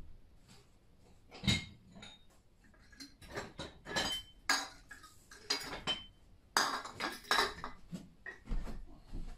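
Hard objects clinking and clattering as they are rummaged through and shifted about in a wooden crate: a run of irregular knocks, some with a short ringing tone, busiest about two-thirds of the way in.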